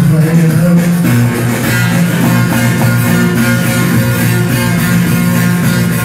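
Bağlama (saz) playing a Turkish folk melody, plucked and strummed, with held notes that step from pitch to pitch.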